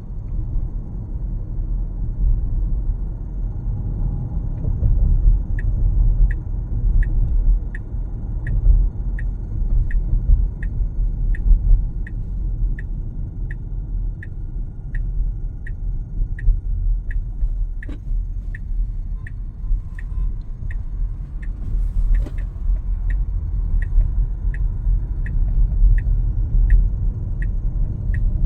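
Road rumble inside a 2026 Tesla Model Y's cabin while it drives, with a light, regular ticking about twice a second that starts about five seconds in.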